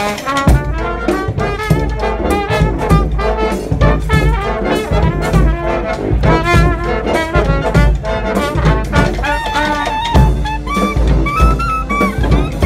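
Brass street band playing a bhangra-style tune: horns carry the melody over a steady drum beat.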